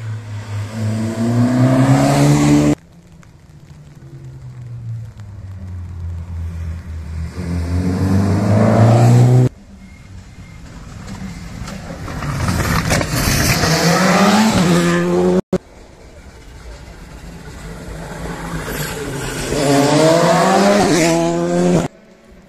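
Rally cars at full throttle, one after another, each engine's pitch climbing as it grows louder; each pass breaks off abruptly, four in all.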